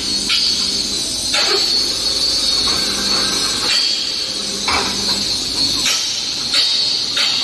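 QTJ4-25D concrete block making machine running: a steady hiss with sharp metal clanks and knocks at uneven intervals, about every second, as its mould and pallet move through a moulding cycle.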